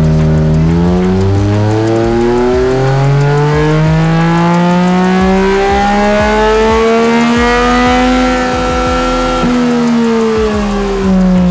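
Yamaha Tracer 900's three-cylinder engine on a dynamometer at full throttle: the revs climb steadily from about 3,000 to nearly 10,000 rpm over some eight seconds, hold briefly at the top, then fall away as the throttle shuts. This is a baseline power run on the stock, unflashed engine map.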